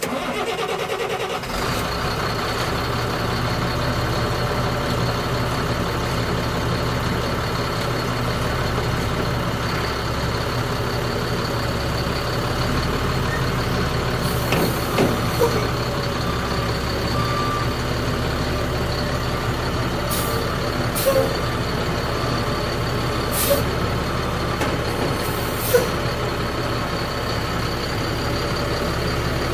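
Caterpillar C7 7.2-litre inline-six turbo diesel of a Ford F750 truck starts up and settles into a steady idle. Short hisses of air from the air-brake system come several times.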